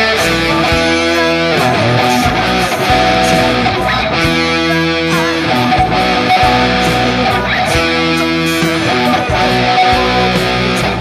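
Guitar music, led by an electric guitar playing held chords and melody lines, loud and continuous.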